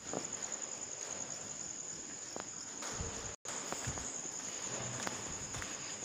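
A steady, high-pitched insect trill, with faint footsteps on a concrete floor. The sound cuts out completely for a moment just past halfway.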